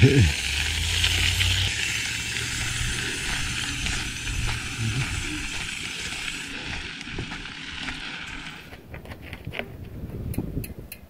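Mountain bike being ridden on a dirt trail: a steady rush of tyre and wind noise. About nine seconds in the rushing drops away and a run of quick ticks follows, the freewheel hub clicking as the bike coasts to a stop.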